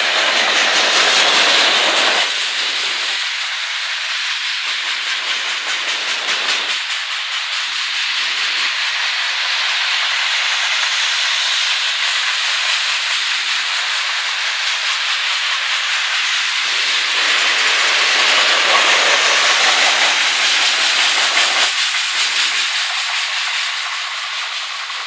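Freight train's loaded flatcars and boxcars rolling past: a steady rush of wheel-on-rail noise that swells twice and grows fainter near the end.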